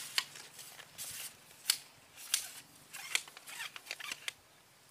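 A string of sharp, irregular clicks and brief crackles, about eight over four seconds, with quiet between them.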